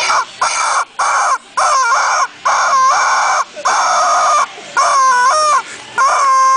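Rubber chicken toy squeezed over and over, letting out about eight loud, harsh squawks in a row with short gaps between them; some are short, the later ones longer, with the pitch bending.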